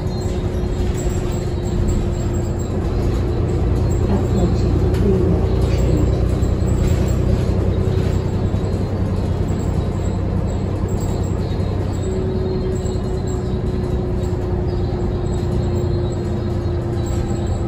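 Interior of a 2020 New Flyer XD40 diesel transit bus under way: steady engine and road rumble with a thin steady whine that drops out for several seconds in the middle.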